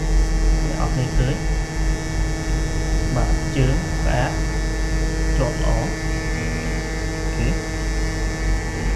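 Steady electrical mains hum: a low buzz with a ladder of even overtones that holds unchanged throughout.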